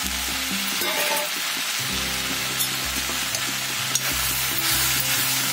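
Chopped chayote and drumstick leaves sizzling steadily in a hot pan, under background music with slow, changing low notes.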